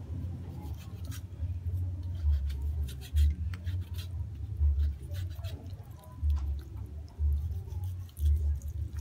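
Large kitchen knife cutting open a raw chicken wing held in the hand: irregular short clicks and crackles as the blade works through skin and joint, with dull low thumps from handling.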